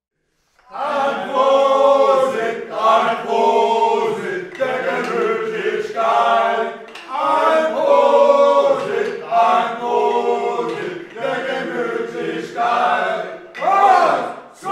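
A group of men singing together a cappella in held, sustained phrases, starting just under a second in.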